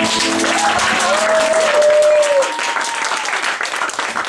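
Audience clapping as the song's last chord dies away, with one long drawn-out cheer from the crowd rising out of the applause about half a second in.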